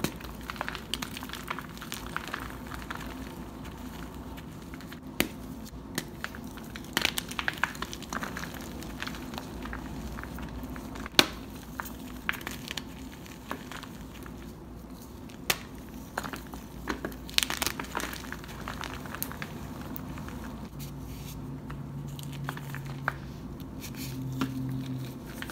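Blocks of Westside Barbell gym chalk, topped with cornstarch paste, being crushed and broken apart by hand: crunching and crumbling with many sharp snaps, the loudest about eleven seconds in.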